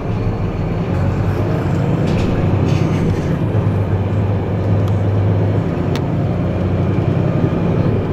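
A road vehicle's engine running with a steady low drone.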